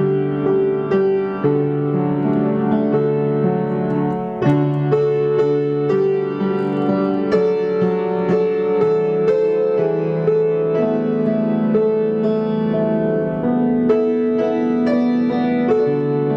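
Electronic keyboard playing a slow piece in held chords, the chords changing about once a second with soft note attacks.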